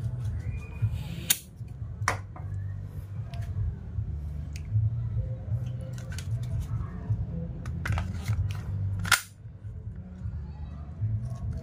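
Gas hissing from a can into the fill valve of an E&C Glock 17 Gen 5 gas blowback airsoft magazine, ending about a second in with a sharp click as the can comes off. Then scattered sharp plastic and metal clicks as the magazine and pistol are handled, the loudest two close together near three-quarters through, over a low hum.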